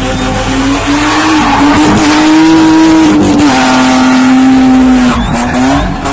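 Car engine held at high revs while the rear tyres spin and squeal on the tarmac in a burnout or donut. The engine note stays high and steady, dipping and rising again a couple of times.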